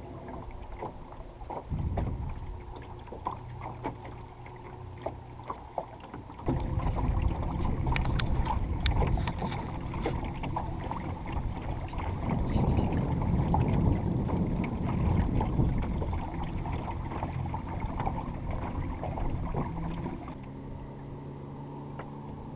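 Small electric-powered dinghy under way on choppy water: water lapping and splashing against the hull, with many small slaps. Under it runs the faint steady hum of the electric motor, which stands out more clearly near the end once the water goes calm.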